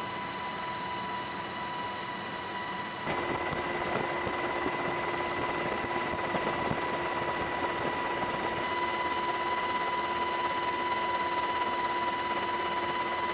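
Steady aircraft engine and airflow noise with a constant high whine, heard from aboard the filming aircraft. It steps suddenly louder about three seconds in.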